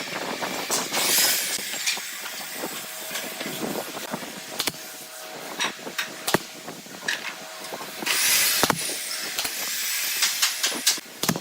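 Workshop noise from working wood: a steady hiss with scattered sharp knocks and clicks, louder for a while about eight seconds in.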